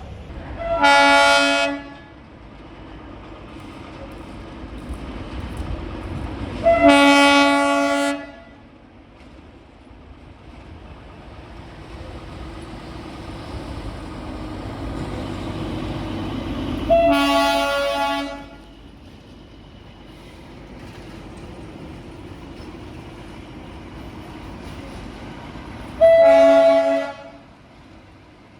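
Darjeeling Himalayan Railway narrow-gauge diesel toy train sounding its horn four times, each blast about a second long, with the train's running rumble between that grows louder toward the middle and then eases.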